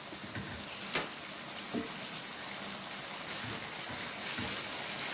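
Meatballs in tomato sauce simmering in a pan on the gas stove: a steady bubbling hiss with a couple of small pops.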